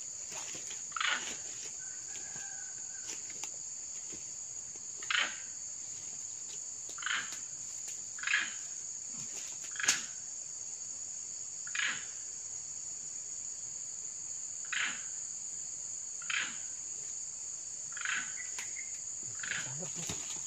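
Steady, high-pitched insect chorus, such as crickets, with short separate chirp-like sounds about every one to two seconds.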